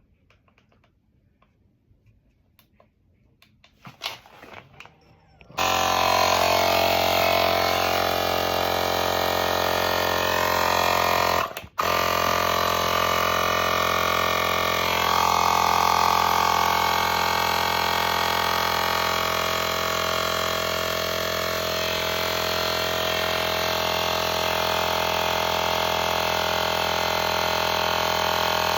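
Electric air pump running steadily as it inflates a bicycle inner tube. It starts suddenly about five seconds in after a quiet stretch, and cuts out for a moment near the middle.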